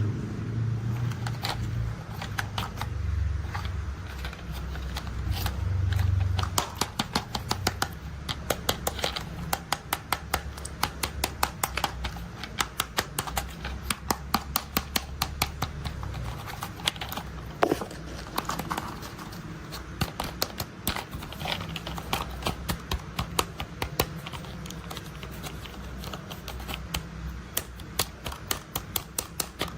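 Toy construction vehicles being handled: a low hum for the first few seconds, then rapid, irregular clicking and rattling, several clicks a second.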